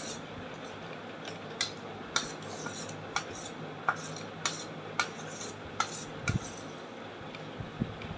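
Metal spoon clinking against a stainless steel plate while scooping rice, about ten sharp clinks spread irregularly through, over a low steady hum.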